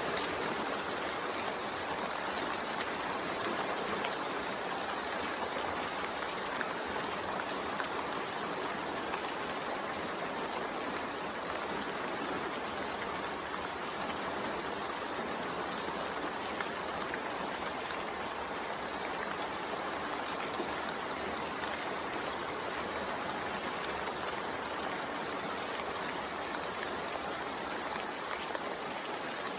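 Steady rain falling, an even continuous hiss with no change in strength.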